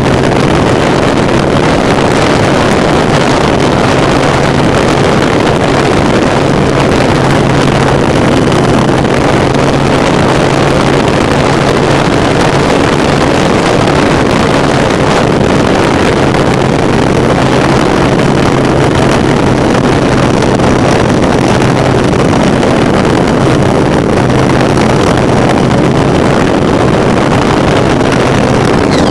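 Airflow rushing loudly over the onboard camera of a model glider in flight, under a steady low hum that drops out briefly a couple of times.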